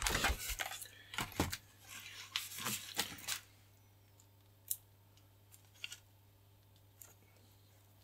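Clear adhesive tape being pulled, cut and handled over a model glider wing: crinkling, rustling and tearing noises for the first three seconds or so, then mostly quiet with a few soft taps.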